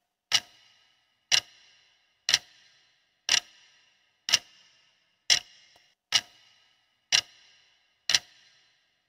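Clock-tick sound effect ticking evenly about once a second, nine crisp ticks each with a short ringing tail, counting down the time left to answer.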